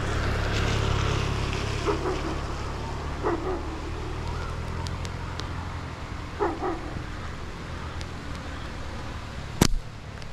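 A single sharp snap of a slingshot being fired, about nine and a half seconds in and the loudest sound, over a steady low rumble. A few short barks come earlier.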